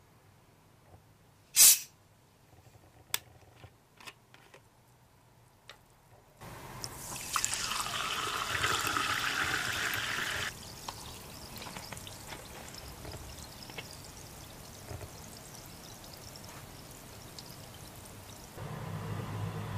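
A plastic bottle of strongly carbonated sparkling water is twisted open with one sharp hiss of escaping gas, followed by a few light clicks of the cap. The water is then poured into a glass for about four seconds, and after the pour stops a quieter steady fizz of bubbles goes on in the glass.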